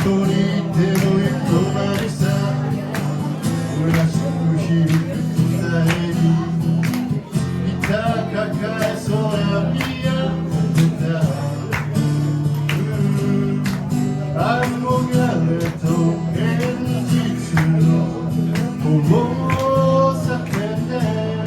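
Acoustic guitar strummed in a steady rhythm, playing chords, with a few melodic notes rising above the strumming.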